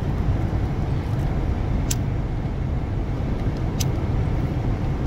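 Steady low rumble of car road and engine noise heard from inside the cabin, with two sharp clicks of a lighter being struck, about two seconds in and again just before four seconds as the flame is put to a cigarillo.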